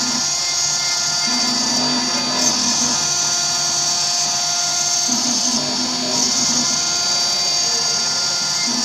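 CNC router spindle running at high speed with a steady high whine while its engraving bit cuts into a metal mold plate. A lower hum comes and goes every few seconds.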